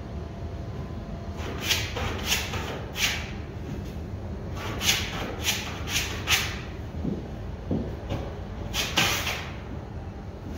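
Drywall knife scraping over joint compound on a repaired corner bead in about a dozen short strokes, in three groups, over a steady low hum.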